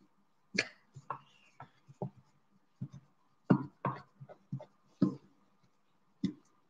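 Wooden popsicle stick scraping and tapping against the sides of a small plastic bowl while stirring a thick homemade clay paste, in short irregular strokes, about a dozen in all.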